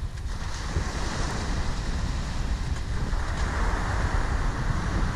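Sea waves breaking and washing on a pebble beach, mixed with wind buffeting the microphone as a low rumble. The surf wash grows louder a little after halfway.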